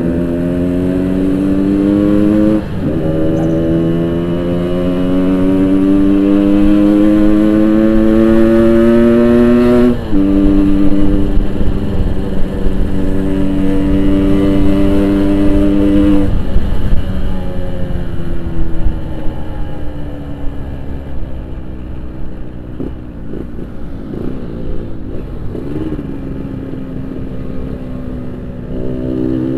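Yamaha RX-King 135cc two-stroke single with a Boban aftermarket exhaust, under way. Its pitch climbs through the gears with upshifts about 3 and 10 seconds in, then holds steady, then falls away as the throttle closes about halfway through. It picks up again near the end.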